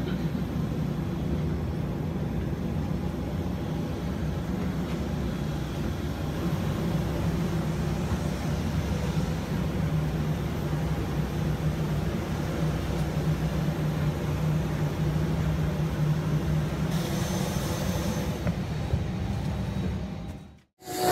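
Steady low droning hum of airport ramp machinery beside a parked jetliner, heard from inside a jet bridge, with a brief rise of hiss near the end.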